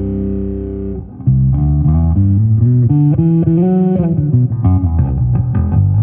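Fender Jazz Bass Special electric bass played solo. A held note rings for about a second and stops, then a melodic bass line follows, with slides between notes and quicker plucked notes toward the end.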